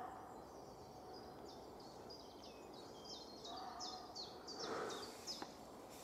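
Faint, distant barks of a muntjac deer, the alarm call muntjac give at a threat they can sense but not place: one near the start and two close together in the second half. Over them a small songbird sings a quick run of high, falling notes, about three a second.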